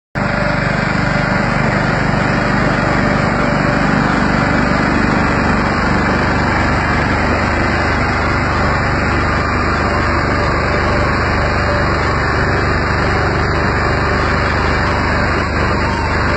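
Rice combine harvester running steadily, its engine and machinery giving a loud, even drone.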